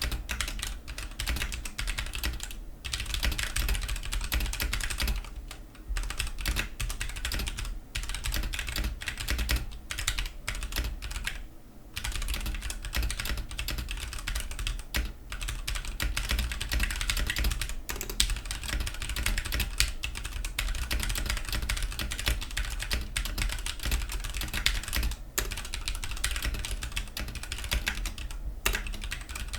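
Fast, continuous typing on a Ducky One 2 Mini mechanical keyboard with Cherry MX Silver linear switches, resting on a cloth mousepad: a dense run of key clicks with a few brief pauses.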